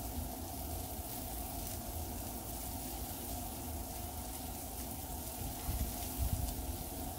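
Sliced onions and bell peppers sizzling on a hot flat-top griddle, a steady hiss, with a low rumble that swells about six seconds in.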